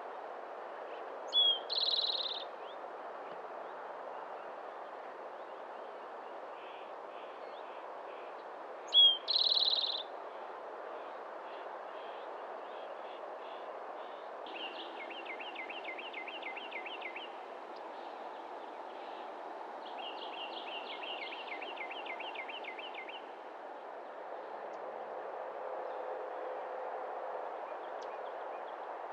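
Wild birds calling over a steady background hiss: a loud short call with a buzzy tail near the start and another about nine seconds in, then two rapid wavering trills of two to three seconds each.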